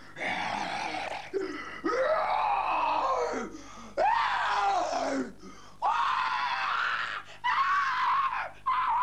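A young man screaming: a run of about six long, high yells with short breaks between them, each one rising and then falling away in pitch.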